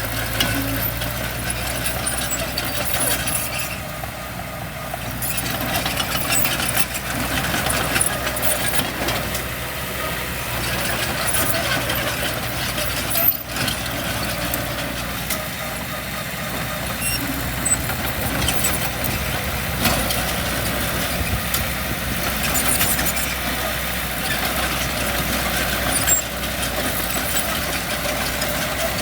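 Diesel engines of heavy earthmoving machinery running steadily, with one sharp knock about halfway through.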